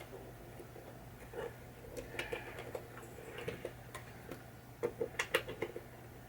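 Light metallic clicks and taps of a nut driver and screw being worked into the pinball drop target assembly, with a quick run of louder clicks about five seconds in, over a steady low hum.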